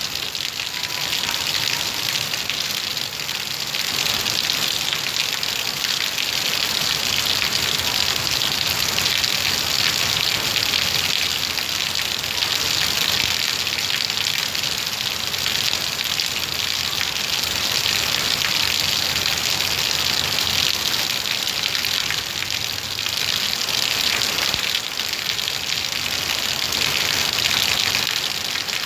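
Torrential rain pouring down steadily, a continuous dense hiss of downpour.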